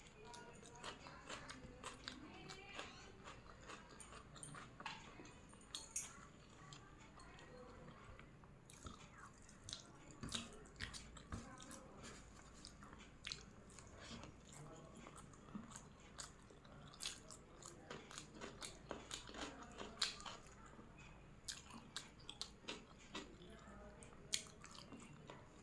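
A person chewing and biting mouthfuls of chicken and egg biryani, close to the microphone. Many short, irregular mouth clicks and smacks run throughout, with a few louder ones.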